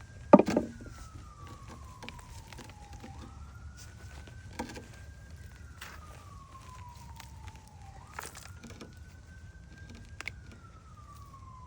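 Emergency vehicle siren on a slow wail, sweeping up quickly, holding, then sliding down over a couple of seconds, repeating about every five seconds. A few sharp knocks come through over it, the loudest about half a second in.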